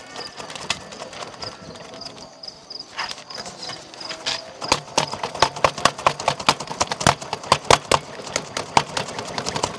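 A small wood fire under a kettle being fanned with a piece of cardboard, giving sharp clacks and crackles. They are sparse at first and come quickly and fairly evenly, about three a second, from about halfway in.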